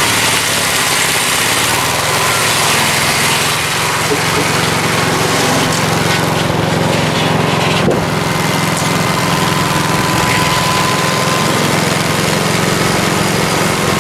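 The engine of a mobile dimension sawmill running steadily, with a faint steady whine over it and a single brief knock about eight seconds in.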